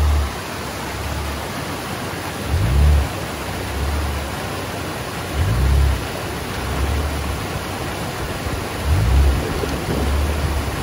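Toyota Land Cruiser 80's engine revving up and easing off several times in low swells as it crawls over rocks, over the steady rush of a stream running over stones.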